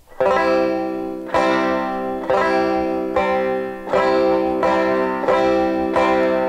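Plectrum banjo strumming a C chord with down and up strokes of the pick, about one stroke a second, each chord left ringing until the next.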